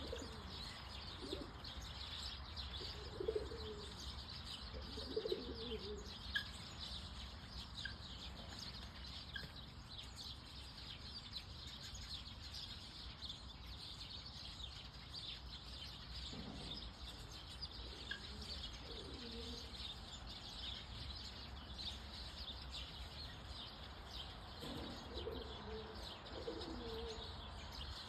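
Many small birds chirping continuously in the background, with low cooing calls in three bouts: near the start, about two-thirds through, and near the end.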